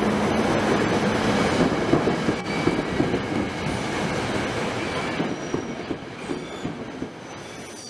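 SEPTA Silverliner V electric multiple-unit train running past on the rails, with steady wheel-and-rail noise and brief high-pitched squeals. The sound grows steadily fainter as the train moves away.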